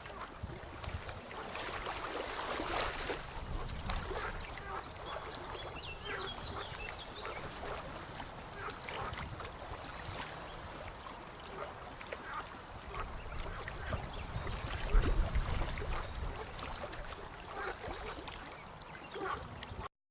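Frogs croaking in a chorus: many short, repeated calls overlapping, with a louder low rumble about three-quarters of the way through. The sound cuts off abruptly near the end.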